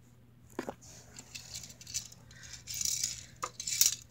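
Handling noise from a small die-cast Hot Wheels toy car and its packaging: rustling with a few sharp clicks and taps, the loudest near the end as the car is set down on a tile floor.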